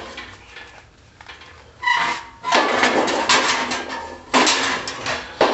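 Handling and clattering of metal gear: a short ringing clink about two seconds in, then rattling and scraping, and another sudden clatter near the end.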